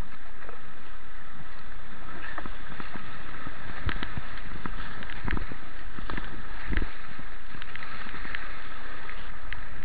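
Rushing white water of a shallow river rapid close by, with several sharp splashes between about four and seven seconds in.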